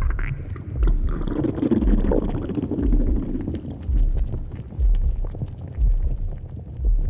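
A person's stomach growling and gurgling, picked up close, with a long rumbling growl about one to three seconds in. Low thuds sound about once a second underneath.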